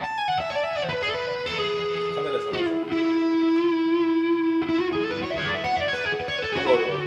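Electric guitar playing a lead solo line. It descends in quick steps, holds one long sustained note for about two seconds, then climbs back up in another run.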